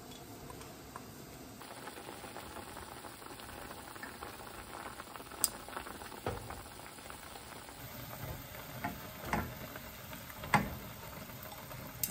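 Chicken wings and green peppers simmering in sauce in a pot, the liquid bubbling steadily while chopsticks stir, with a few sharp knocks of utensils against the pot, the loudest about ten seconds in.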